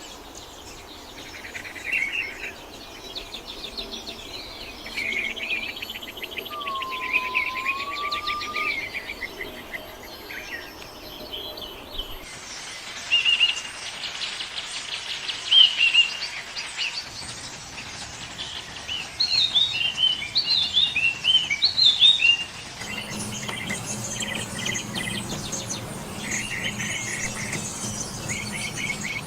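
Several wild birds singing and calling: quick chirps, trills and rapid slurred notes, some faster runs of sharp notes in the middle. The background noise changes abruptly twice, as separate recordings are cut together.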